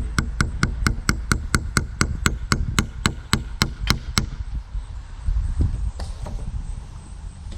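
Hammer tapping a small nail into a wooden fence post: quick, even strikes, about four a second, each with a faint metallic ring. They stop a little past halfway, and a few scattered knocks follow.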